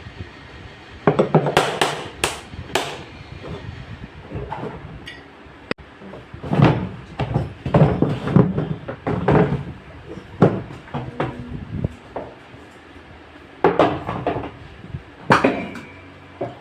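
Irregular metal knocks and clattering of hands and tools working on a front-load washing machine, coming in bursts with short pauses between them.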